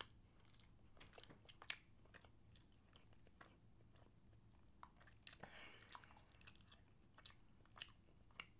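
Faint, close-up sounds of a person chewing baked chicken: scattered soft clicks of the mouth, with a brief soft rustle about five seconds in.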